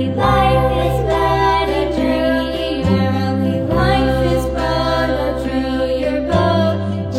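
Background music: a sustained, choir-like vocal track over a steady bass, the chords changing about every three seconds.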